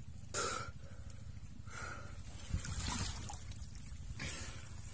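Muddy water splashing and squelching in a few short bursts as a bare hand gropes in a flooded hole in a creek bank to pull out an eel.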